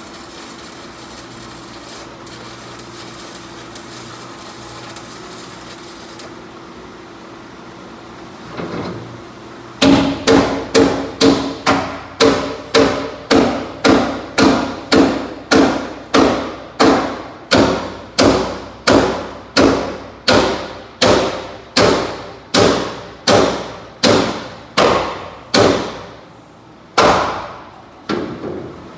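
A welding arc crackling steadily, which stops about six seconds in. From about ten seconds in, a hammer strikes the steel plate of the truck bed floor about twice a second for some sixteen seconds, each blow ringing and dying away, with two more blows spaced out near the end.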